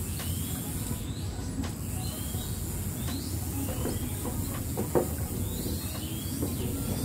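Birds giving short swooping chirps every second or two, over a steady low outdoor rumble and hiss.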